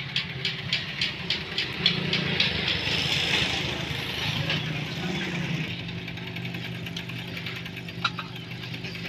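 Petter-type diesel engine running with a steady knocking beat, about four strokes a second. A hiss swells and fades about three seconds in.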